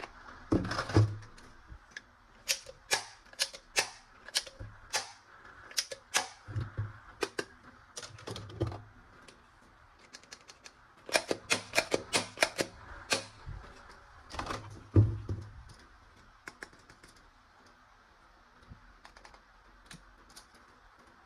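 Irregular clicks and light knocks of hard plastic toy gun parts being handled, coming in quick clusters with a few soft thumps, then mostly quiet for the last few seconds.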